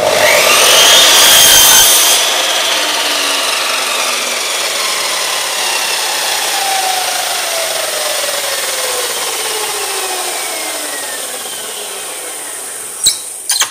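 Makita sliding mitre saw (drop saw) running up and cutting through a timber board, loudest for the first two seconds. The blade then spins down freely, its whine falling slowly over about ten seconds. Near the end come a few sharp clicks.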